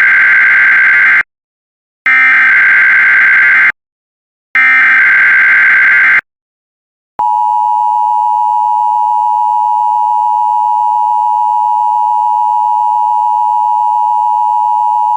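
Emergency Alert System header: three bursts of SAME digital data tones, each about a second and a half long, then the steady EAS attention signal for about eight seconds. Together they announce an emergency alert broadcast.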